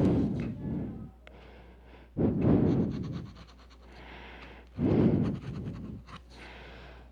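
A person breathing out heavily close to the microphone, three long breaths a couple of seconds apart, with faint scratching and small ticks of crafting work on cardboard or paper between them.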